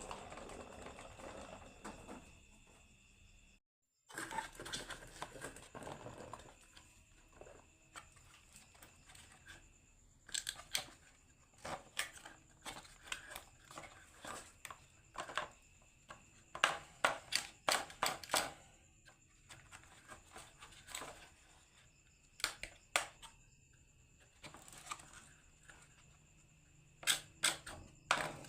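Marbles rolling down a wooden HABA marble run, with irregular sharp clicks and clatters as they hit and drop through the track pieces. The sound stops dead for a moment about four seconds in, and the clatter grows busier in the second half.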